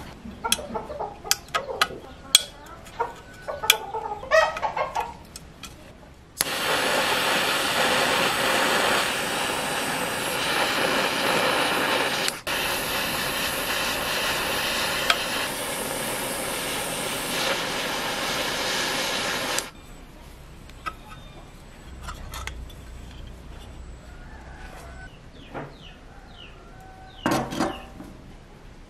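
Workshop taps and clicks, then a power tool running loudly and evenly for about thirteen seconds, briefly cutting out near the middle before stopping sharply, followed by quieter handling knocks.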